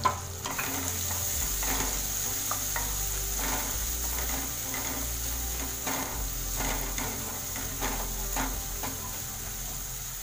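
Chopped onion sizzling in hot ghee in a kadhai, with a spatula stirring and scraping against the pan about once or twice a second and one sharp knock right at the start.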